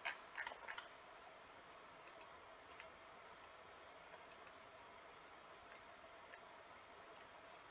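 Near silence: faint room tone with a few scattered faint clicks, several close together in the first second and odd single ones later.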